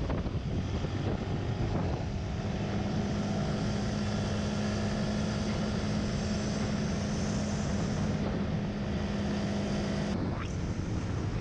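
Onboard sound of a motorbike cruising: the engine holds a steady, even hum under heavy wind rush on the microphone. The hum drops away near the end.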